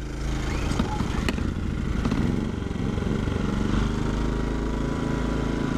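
Small four-stroke Westinghouse inverter generators running steadily. About two seconds in, a second engine note comes in and slowly rises in pitch as the other generator is switched on and settles.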